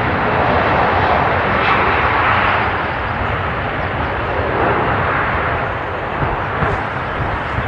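Boeing 757 jet engines running loud and steady, a continuous rushing noise with no distinct tones.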